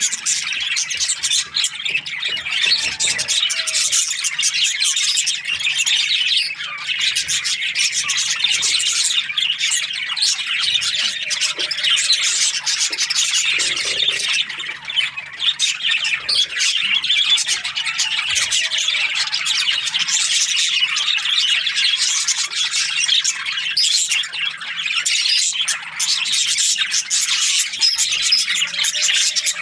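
A flock of budgerigars chattering and chirping without a break, many birds calling at once.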